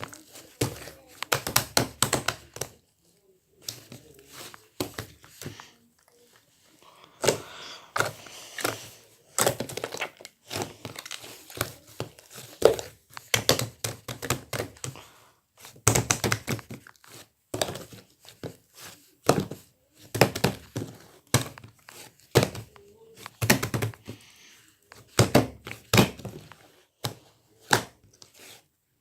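Hands squishing, folding and stretching slime, making clusters of sharp popping clicks and crackles with short pauses between.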